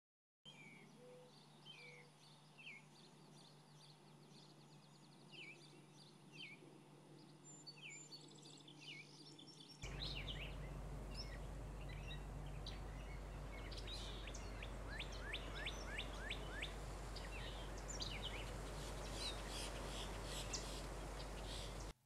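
Wild songbirds calling in two stretches. First a thin, short falling chirp repeats about once a second over a faint steady hum. Then, from about ten seconds in, a louder recording carries a steady low rumble and a busier mix of varied chirps and quick runs of notes.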